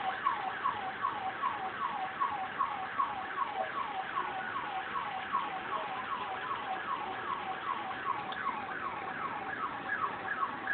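Electronic siren sounding a fast, repeating falling wail, about three sweeps a second, holding steady without coming closer or fading.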